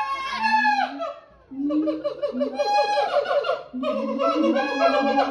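Voices with laughter: a young child's babbling and squeals among adults' voices, broken by a short pause about a second in.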